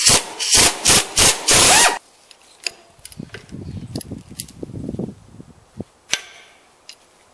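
Impact wrench fired in five short bursts over about two seconds, loosening the sprocket bolt at the front of a Jeep 4.0 inline-six. After that, quieter metal clinks and rustling as the timing chain and its sprockets are pulled off the crank and cam.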